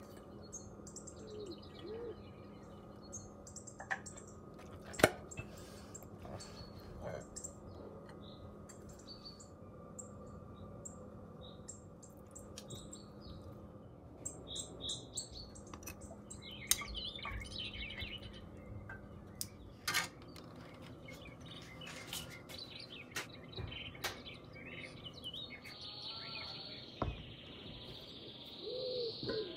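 Small birds chirping on and off, with a dove cooing near the end. A few sharp clicks and knocks, the loudest about five seconds in, over a faint steady hum.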